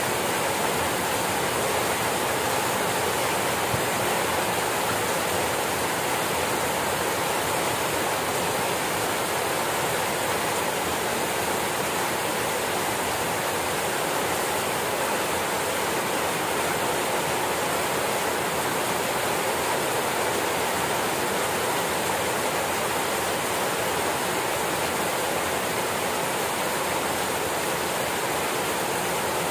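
Rain falling steadily, a constant even hiss with no let-up.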